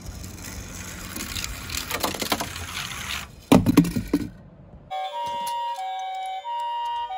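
Toy minicars rattling and rolling over a surface, then a loud clatter of toys knocking together about three and a half seconds in. About five seconds in, a two-tone high-low siren pattern starts alternating steadily, with other steady tones under it.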